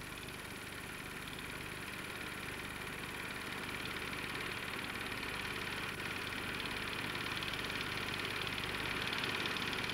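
Steady mechanical whirring hum, slowly growing louder.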